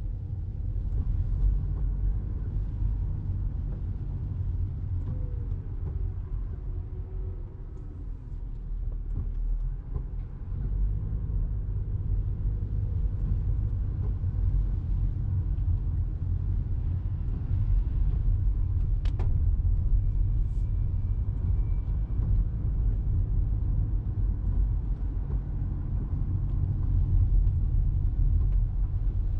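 Steady low rumble of road and drive noise inside the cabin of a Toyota Crown Athlete hybrid driving on wet streets, with one sharp click about 19 seconds in.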